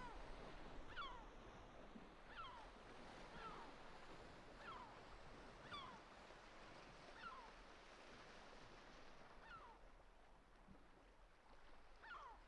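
Faint, short high calls from an animal, each sliding downward in pitch, repeated about once every second or so and thinning out near the end, over a soft hiss.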